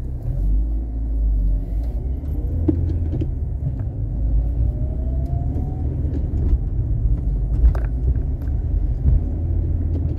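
Car driving through city streets: a steady low rumble of engine and road noise, with a faint rising whine about halfway through.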